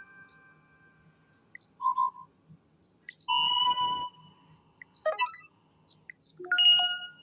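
Sony Xperia L4 notification tones played one after another: a chime fading out, a short beep about two seconds in, a brighter multi-note chime a little past three seconds, a quick run of notes around five seconds, and another chime near the end.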